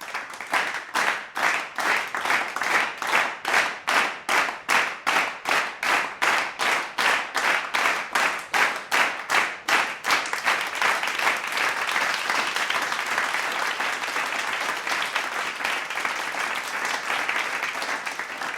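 Crowd clapping together in a steady rhythm, about three claps a second, then about ten seconds in breaking into continuous, unsynchronised applause.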